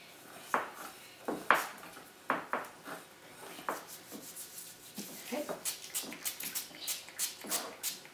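Hands working damp bath bomb powder in glass mixing bowls: scattered knocks and scrapes against the glass, one sharper knock about one and a half seconds in, then a quicker run of short rustling ticks from about five seconds in.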